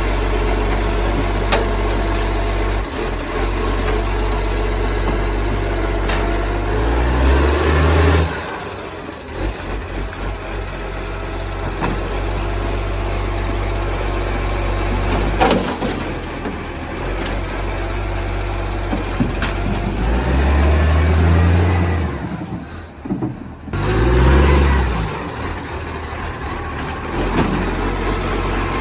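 Acco garbage truck's diesel engine running loud through a massive exhaust leak, revving up in steps and dropping back three times, about 7, 21 and 24 seconds in. A single sharp knock comes about halfway through.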